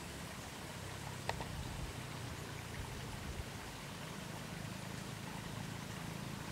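Steady outdoor background noise: a low rumble under an even hiss, with a single sharp click about a second in.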